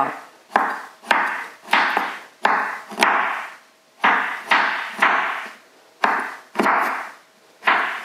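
Kitchen knife slicing green olives on a wooden board: a steady series of sharp knife taps against the wood, about one and a half a second, each fading briefly.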